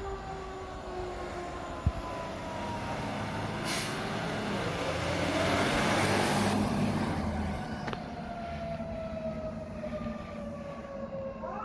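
Fire apparatus siren winding slowly down, then spinning back up near the end. In the middle a heavy vehicle passes close, loudest about six seconds in.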